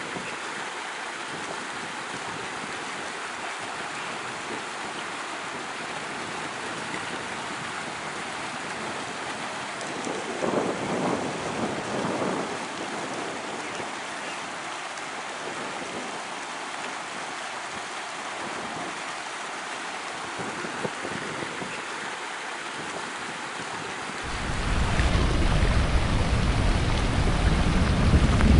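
Floodwater running through the concrete energy-dissipator blocks of a desert flood channel, a steady hiss that swells briefly for a couple of seconds. In the last few seconds a loud low rumble comes in over it.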